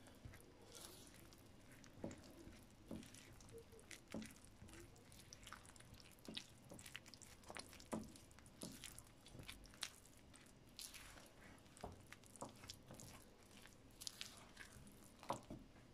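Spatula stirring flour, egg, oil and melted margarine into a dough in a bowl: faint, irregular soft scrapes and squelches with occasional light taps.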